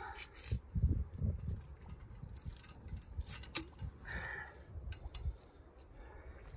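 Handling noise: scattered light clicks and clinks, like metal gear being moved, with a brief rustle about four seconds in and low thumps from movement.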